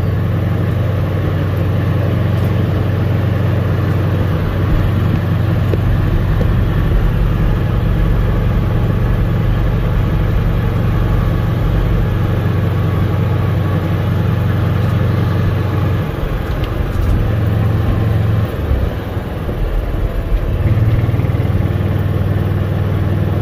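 Golf cart engine running steadily as the cart drives along, a low hum that eases off and dips about three quarters of the way through, then picks back up.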